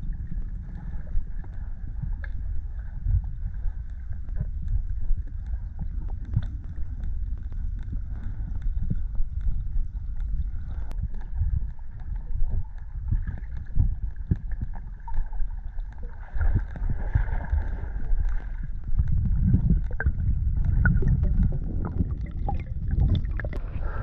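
Muffled water noise around a swimmer's action camera in a freshwater cenote: a constant low rumble of moving water with scattered small clicks, swelling a little a few seconds before the end.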